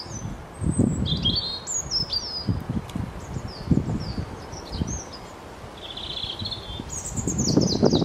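Several small birds chirping in short, mostly falling high notes, with a brief trill about six seconds in. Low gusts of buffeting noise come and go underneath, the loudest near the end.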